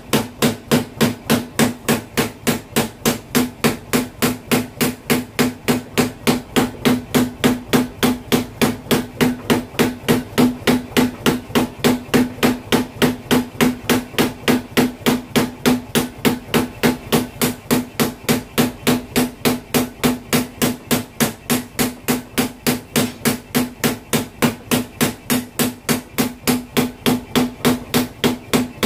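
Power hammer pounding a red-hot knife blade of bearing steel held in tongs on its die, a steady run of about three blows a second, each with a low ring.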